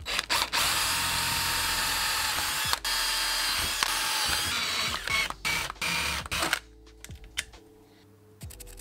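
Power drill boring a hole through a small metal plate clamped in a bench vise, the bit grinding steadily through the metal. It runs for about four seconds with one brief break, gives a few short bursts, and stops about two-thirds of the way through.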